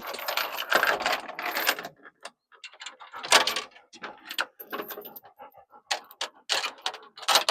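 Dogs panting and moving about, with a dense rustling, scuffling stretch over the first two seconds and then short scattered scuffs and clicks.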